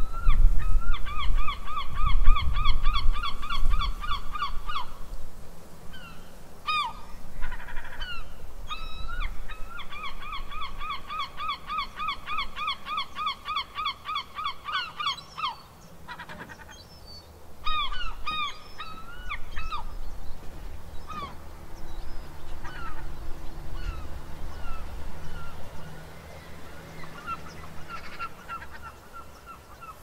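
Seagulls calling: two long runs of rapid, repeated calls lasting a few seconds each, then scattered single calls. A low rumble lies underneath, louder in the first few seconds.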